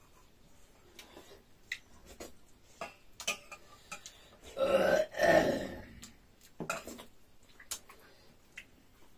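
A loud burp in two swells, lasting about a second and a half halfway through. Small clicks and smacks of eating come before and after it.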